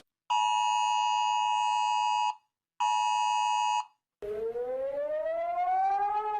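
Two bursts of a steady two-tone emergency alert attention signal, the first about two seconds long and the second about one second. About four seconds in, a siren tone starts that rises slowly in pitch and begins to fall again near the end.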